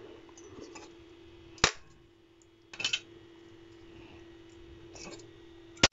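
Sharp cracks of homemade match-head firecrackers popping on a tile floor under hammer blows: a loud one about a second and a half in, a softer double crack near three seconds, and another loud crack near the end.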